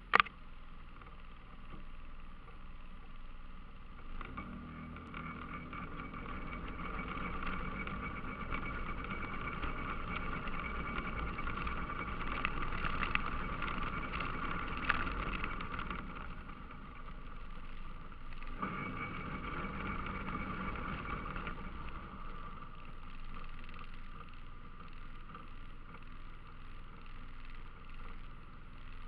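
ATV engine running while riding along a gravel trail, with tyre and chassis rumble. It gets louder about four seconds in, eases off past the middle, and picks up again briefly. A couple of sharp knocks, likely bumps in the trail, come near the middle.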